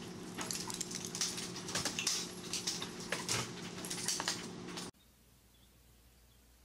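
A chihuahua scrambling over a clear barrier on a tile floor, its claws clicking and scratching in quick irregular bursts over a steady low hum. The sound cuts off suddenly about five seconds in, leaving only faint background noise.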